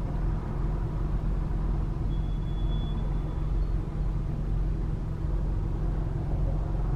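Steady low rumble of a car heard from inside the cabin: engine and road noise in slow stop-and-go traffic.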